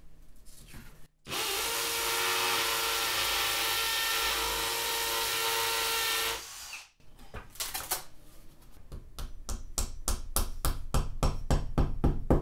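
Cordless drill boring a hole into a cinder-block wall, running steadily for about five seconds and then stopping. After a short pause a hammer starts tapping a wall anchor into the hole: quick knocks, about four or five a second, that grow louder.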